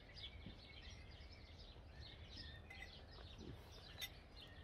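Faint birdsong: small birds chirping and twittering in quick, short notes, with one sharp click about four seconds in.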